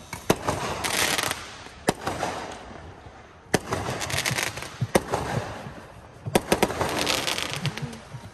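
Fireworks going off in an irregular series of sharp bangs, each run followed by dense crackling, with several bangs in quick succession past the middle.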